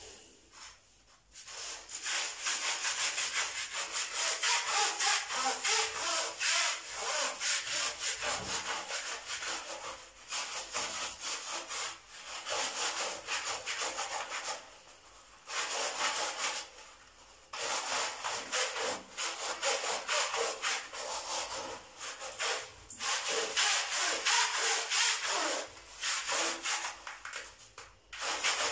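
Scrub brush scrubbing the metal mesh filter of a kitchen range hood in quick back-and-forth strokes, bristles rasping on the wire mesh through the cleaning foam. The scrubbing comes in bouts with short pauses.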